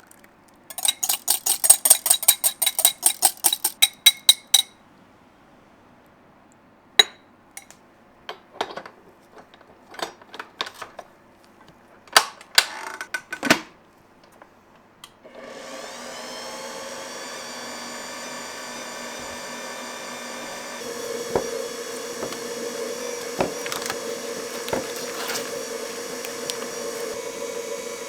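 Rapid ringing taps for a few seconds, then scattered clicks and knocks, then a small electric motor, likely a mixer for the madeleine batter, starts about halfway through and runs steadily. Its tone changes at about three quarters of the way through.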